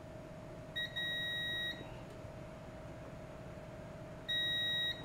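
Digital multimeter's continuity buzzer beeping twice, a steady high electronic beep of nearly a second and then a shorter one, each time the probe tips close a circuit on the flight controller board. A faint steady hum runs underneath.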